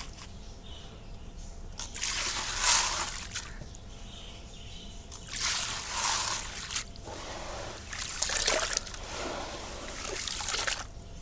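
Wet concrete poured into water in four separate pours, each splashing and trickling for a second or two.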